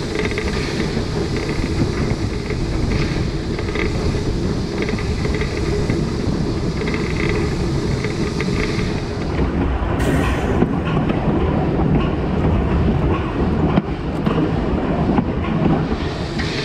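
A narrow-gauge steam train running along the track, heard from on the locomotive: a steady rumble of wheels and running gear with a faint regular beat.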